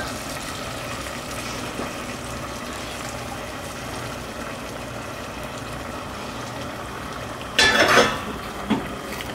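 Arborio rice and stock boiling in an open stainless steel pressure cooker on a gas burner, a steady bubbling. Near the end comes a brief louder clatter.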